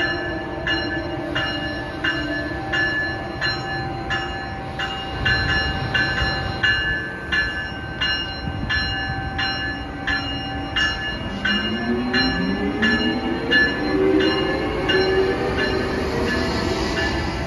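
Amtrak Siemens ACS-64 electric locomotive pulling slowly into a station with its bell ringing steadily, about two strokes a second. In the last few seconds a low whine from the train rises in pitch as the locomotive passes close by.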